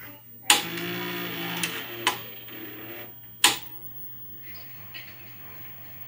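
Philips VR6820 VHS video recorder's tape-loading mechanism going into play: a loud clunk, then about a second and a half of motor whirring as the tape is threaded, a click, and a second loud clunk about three and a half seconds in as it settles into playback.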